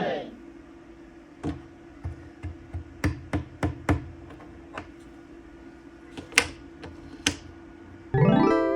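Sharp, irregular clicks and knocks of toy puzzle pieces being handled and fitted together, over a faint steady hum. Near the end a loud tone rises in pitch and holds.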